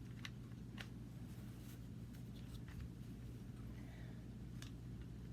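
Faint, scattered clicks and taps of plastic stroller parts being handled during assembly, over a steady low hum.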